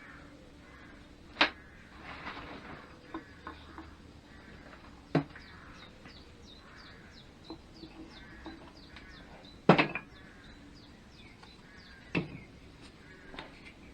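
Sharp wooden and metal knocks and lighter clicks as the wooden blocks supporting the pistons are pulled out from under the cylinder barrels on the engine. There are four loud knocks, the loudest about two-thirds of the way through, with smaller clicks between them.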